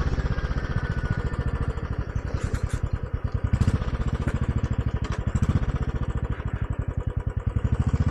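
Royal Enfield Classic's single-cylinder engine running at low revs, with a steady, even beat of firing pulses.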